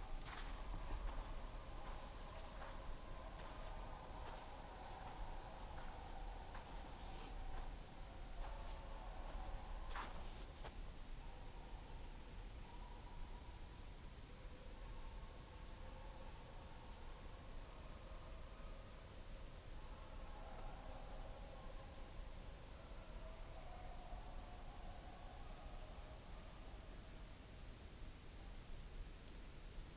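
Faint, steady insect trilling: a high, rapidly pulsing chirr that holds even throughout. A single sharp click sounds about ten seconds in.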